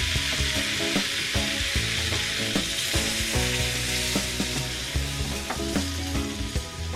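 Food frying in hot coconut oil in a pan, with a steady dense sizzle. Background music plays underneath.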